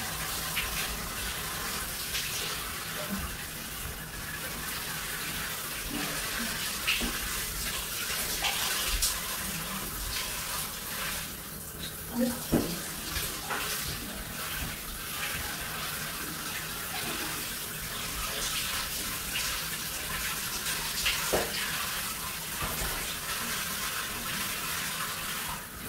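Shower water running steadily and splashing in a tiled shower cubicle, with a few short knocks from scrubbing against the walls.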